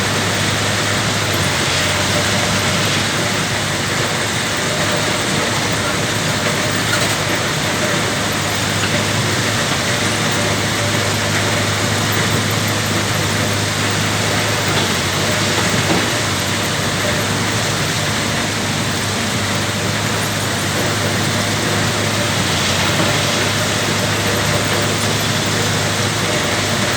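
Heavy diesel engine of earth-moving equipment running steadily at a constant speed: a continuous low drone under a dense mechanical rush, with no clear revving or breaks.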